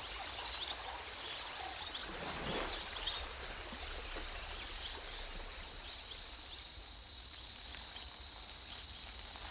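Steady high-pitched insect trill with a few bird chirps at the start; about two and a half seconds in, a short splash in water.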